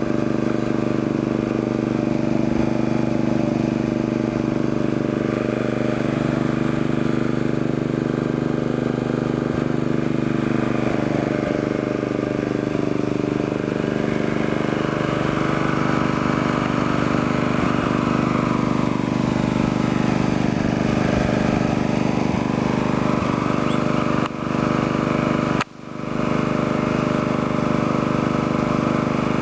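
A small engine running steadily at an even speed, dipping briefly twice near the end.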